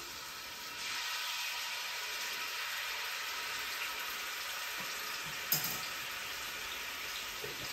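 Green seasoning sizzling in hot oil in a frying pan, the sizzle growing louder about a second in as more goes in. One short sharp clack partway through.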